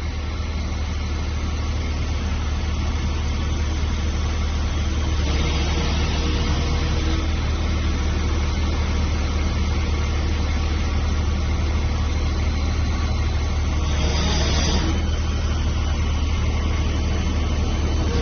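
Heavy diesel engine running steadily at idle, a constant low hum, with a brief hiss about fourteen seconds in.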